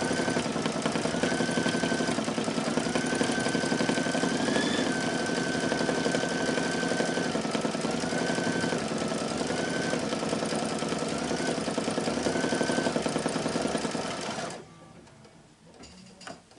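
Brother Luminaire embroidery machine running, needle stitching rapidly as the hoop moves to sew down an appliqué piece, with a motor whine that repeatedly dips and rises in pitch. The machine stops abruptly about two seconds before the end, as the stitching finishes.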